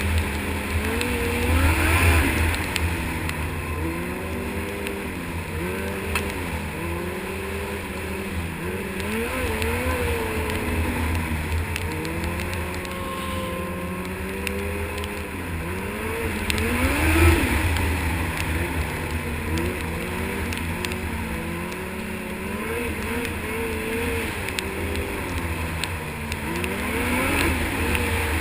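Snowmobile engine running under way, its pitch rising and falling again and again as the throttle is worked, with louder surges about two, seventeen and twenty-seven seconds in.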